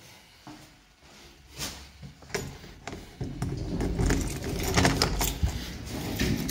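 Rustling and sharp clicks with a metallic jangle as a door's lock and handle are worked, louder from about three seconds in.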